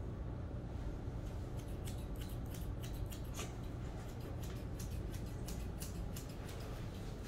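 Grooming scissors snipping through a dog's head hair: an irregular run of quick, crisp snips starting about a second and a half in, over a steady low hum.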